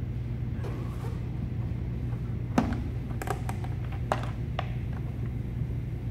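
Plastic air filter box cover being pushed and worked by hand onto the housing of a 2015 Ford Focus: a few sharp plastic clicks and knocks, the loudest about two and a half seconds in, then several more over the next two seconds, over a steady low hum.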